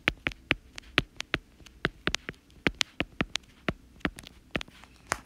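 Stylus tip tapping and clicking on a tablet's glass screen while handwriting, a quick, irregular series of sharp clicks.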